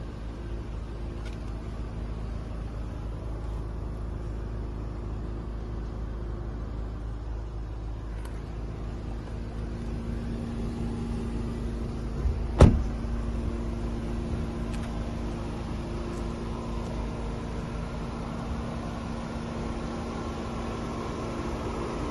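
Volkswagen Golf R's turbocharged four-cylinder engine idling with a steady low hum. One sharp thump about twelve and a half seconds in.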